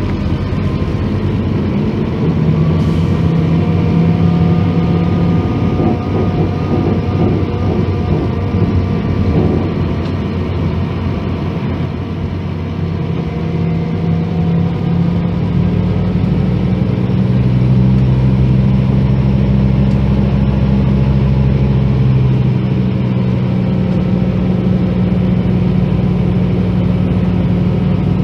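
Scania K310 coach's rear-mounted 8.9-litre five-cylinder turbo-diesel (DC9) engine running, its pitch rising and falling slightly, then holding steadier and a little louder in the second half.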